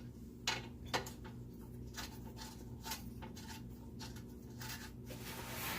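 Scattered light metallic clicks and taps of hand tools working a seized exhaust Y-pipe bolt, ending in a brief scraping rush.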